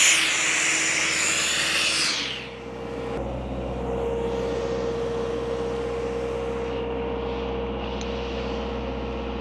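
Compressed air blasting out of the open end of an old rubber air hose, blowing out moisture, then cut off about two seconds in. After that, the towable Sullair 225H compressor's diesel engine runs steadily with a low drone and a held hum.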